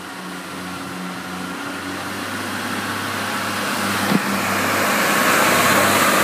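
A Northern Class 144 Pacer two-car diesel multiple unit rolls past close by, its diesel engines humming under the rumble of wheels on rail. The sound grows steadily louder as the train comes alongside.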